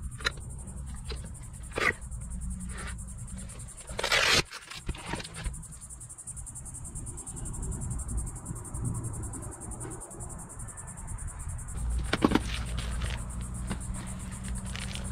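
Handling noise of a kite harness: rustles, scrapes and light clicks of webbing, fabric and a plastic buckle being worked by hand, with a louder scrape about four seconds in and another about twelve seconds in. A steady high insect buzz runs underneath.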